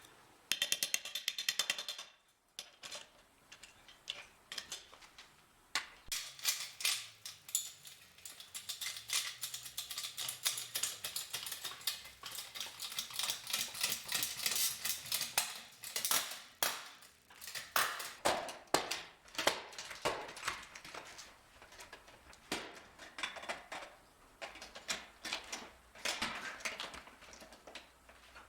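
Ratchet wrench clicking in repeated rapid runs while wheel bolts are undone by hand, with a dense burst of clicking near the start.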